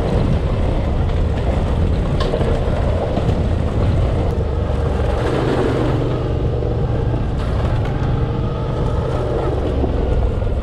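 Motorcycle engines running steadily: a Suzuki V-Strom 650 V-twin with a Yamaha XT250 single alongside.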